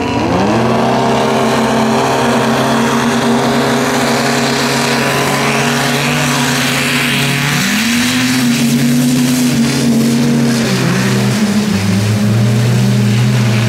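Four racing snowmobiles launch together and accelerate up the hill at full throttle. Their engines jump to a high pitch about half a second in and then hold high and fairly steady, with another engine note climbing again about two-thirds of the way through.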